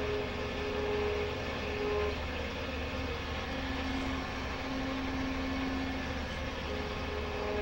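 Brother wire EDM machine running its automatic wire-threading cycle, pushing the wire from the upper head to the lower head: a steady mechanical hum and hiss with faint held tones that come and go.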